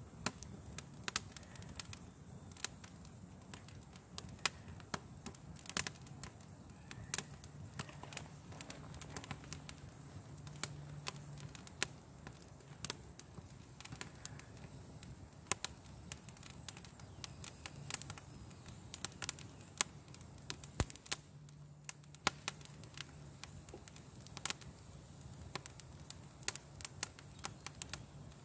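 A small twig fire crackling and popping in a steel fire ring, with irregular sharp snaps: the twigs are damp and the fire is smoking.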